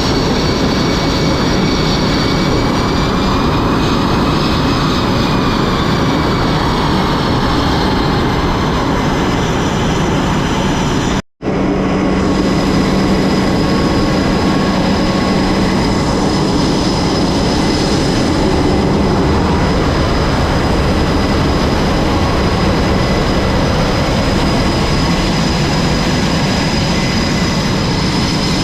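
Loud, steady jet engine noise with several high whining tones that drift a little in pitch over a low hum. It breaks off in a brief dropout about eleven seconds in, then carries on.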